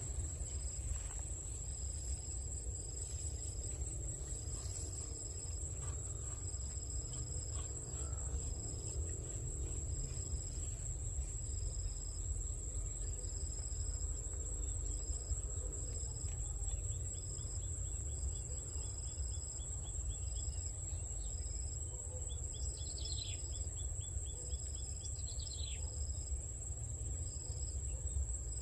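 Insects chirping: a continuous high, steady trill with a regular chirp repeating a little over a second apart, and two short falling calls near the end, over a low steady rumble.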